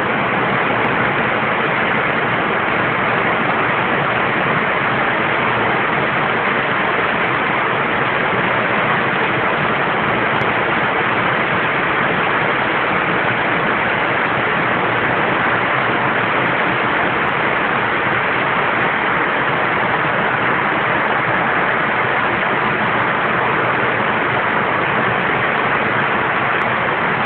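Rain falling steadily: an even hiss of tropical rain that holds level throughout.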